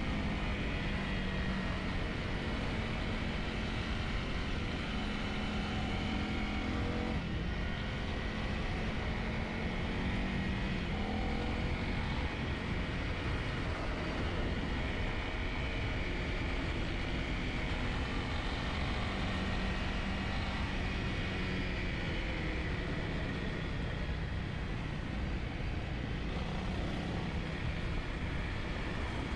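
Dual-sport motorcycle engine running under way on a gravel road, its pitch rising and falling with the throttle and shifting about seven seconds in, over a steady hiss of road and wind noise.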